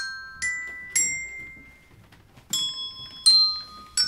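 Bell-like notes struck one at a time on a tuned percussion instrument, six high ringing notes that each fade slowly. Three come in quick succession, then after a short pause three more.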